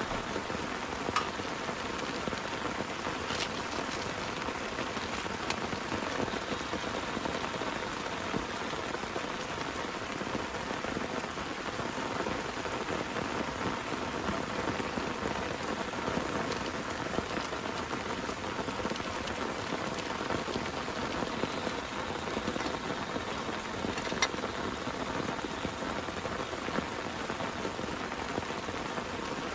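Steady heavy rain, with a few single louder drops ticking sharply close by.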